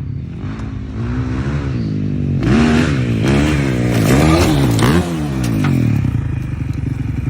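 Motorcycle engine accelerating, its pitch climbing and dropping several times as the revs rise and fall.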